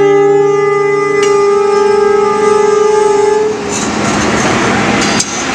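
Electric locomotive's horn sounding one long steady blast of about three and a half seconds, then the rumble of the locomotive rolling slowly by on the rails, with a sharp click near the end.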